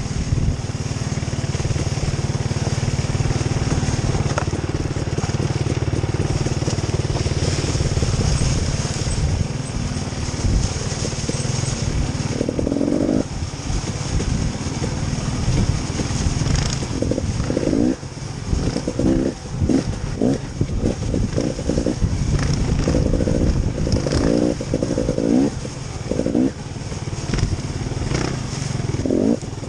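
An engine of a motor vehicle running, with a steady low drone. It revs up and down many times in the second half.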